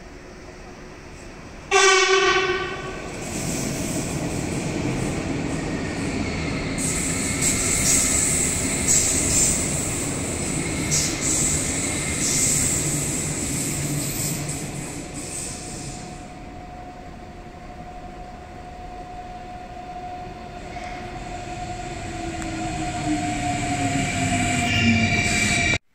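A train at a station: a short horn blast about two seconds in, then the steady rumble and hiss of the train running on the rails. In the second half come a steady whine and a tone that falls in pitch near the end.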